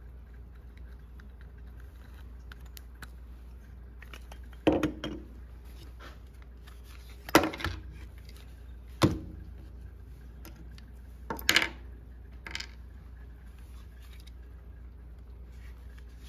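Drill parts being handled and set down on wooden boards: five short knocks and clatters of plastic housing and metal gearbox parts, spread over several seconds, the loudest a little past the middle, over a steady low hum.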